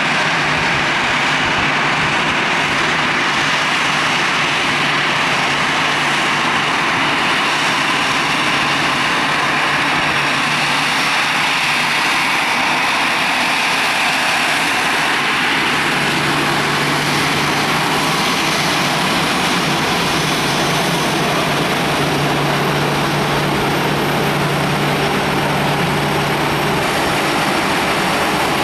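Airbus A320 jet airliner's engines running steadily at low power, a constant loud rush with a faint thin whine over it.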